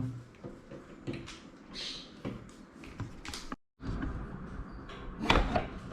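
Scattered small clicks and taps from handling the opened iPhone's parts and repair tools, with a moment of dead silence a little past halfway and a louder tap near the end.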